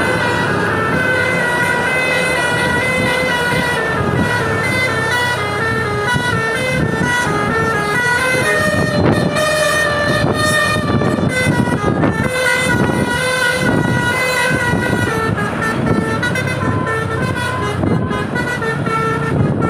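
Seven-trumpet telolet air horn on a tour bus playing a melody in quick stepped notes. A regular low thumping joins underneath from about eight seconds in.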